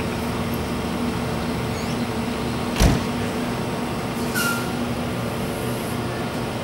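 Waratah A-set double-deck electric train standing at the platform with doors open, its onboard equipment humming steadily. A sudden thump comes about three seconds in, and a short hiss about a second and a half later.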